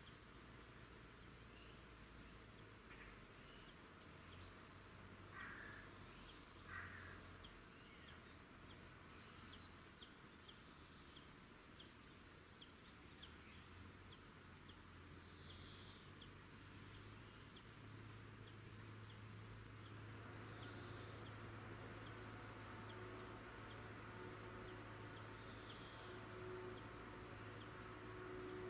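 Faint outdoor nature ambience: scattered short, high bird chirps and small insect-like ticks over a low steady hum.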